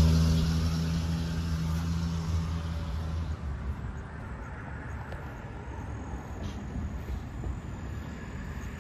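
A motor vehicle's engine passing close by, a low steady hum that is loudest at the start and fades away over about three seconds as it moves off, leaving faint steady outdoor background noise.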